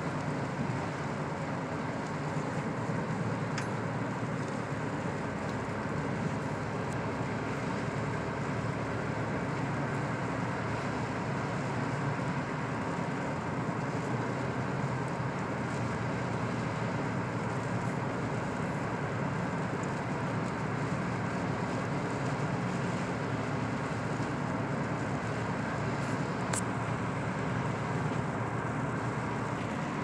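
Steady road noise inside a car's cabin at highway speed: tyres on a snow-covered road, with the engine running underneath.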